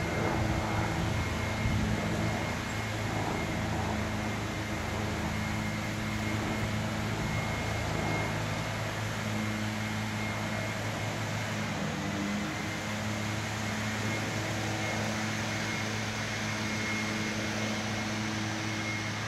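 Steady hum of an idling engine: a low drone with a thin, steady high whine above it.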